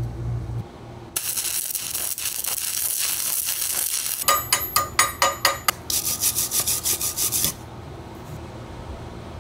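Belt grinder running against a steel billet, cut off about half a second in. Then rapid rasping strokes on metal, loudest and most regular near the middle at about five strokes a second, stopping about two seconds before the end.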